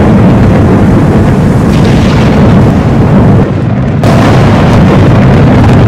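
Loud, continuous rumble of thunder with no separate sharp cracks. About three and a half seconds in it turns duller and slightly quieter, then comes back in full abruptly half a second later.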